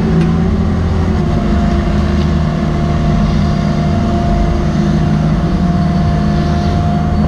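Cat 305.5E mini excavator's diesel engine and hydraulics running steadily as the machine swings a loaded bucket over, dumps the spoil and swings back, heard from the operator's seat. A steady whine sets in about a second in.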